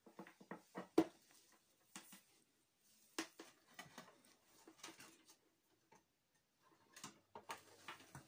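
Irregular clicks, taps and knocks of hands handling a desktop computer's sheet-metal case and its power supply unit, with a cable being moved; the sharpest knock comes about a second in.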